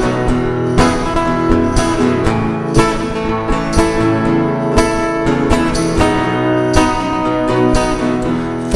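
Acoustic guitar strumming chords in an instrumental break between sung verses, with an accented strum about once a second.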